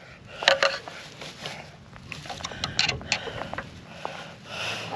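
Scattered clicks, taps and scrapes of a screwdriver prying a rubber exhaust hanger isolator off its metal hanger rod, with a quick run of sharp clicks a little past the middle.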